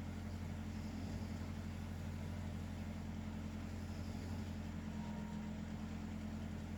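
A steady low hum, even in level throughout, with a faint hiss recurring about every four seconds.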